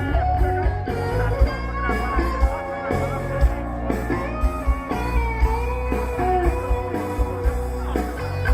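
Rock band playing live without vocals: a guitar lead line over bass and drums.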